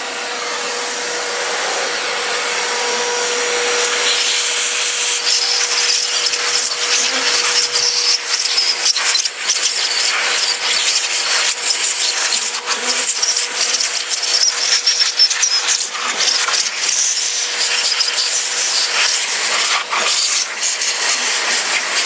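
Construction vacuum cleaner running in blower mode, a steady loud rush of air driving the bees out of a honey super, with frequent short knocks throughout. A steady motor whine sounds at first and fades out about four seconds in.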